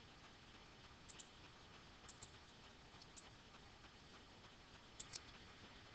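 Near silence with a few faint clicks from a computer input device, in pairs about one, two and five seconds in, while a circle is drawn on screen.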